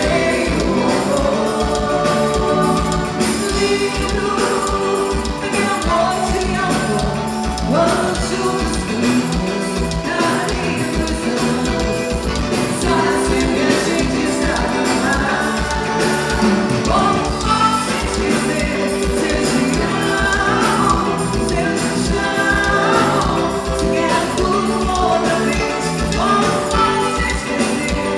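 Forró band playing a song with sung vocals over a steady beat.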